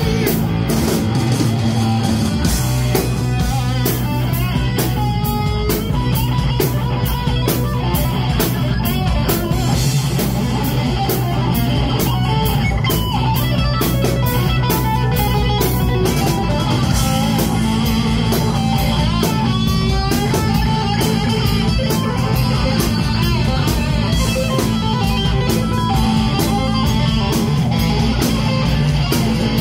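Heavy metal band playing live: distorted electric guitars over a drum kit, the drums hitting in a fast, steady rhythm.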